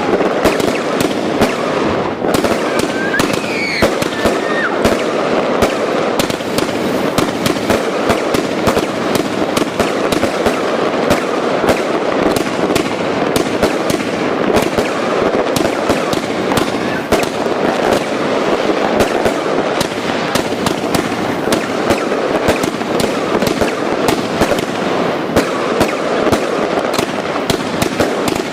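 Firecrackers going off in a rapid, continuous crackle of overlapping pops that does not let up.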